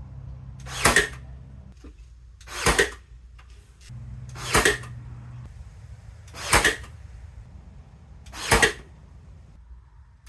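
Nail gun firing as door trim is fastened, five sharp shots evenly spaced about two seconds apart, over a low steady hum.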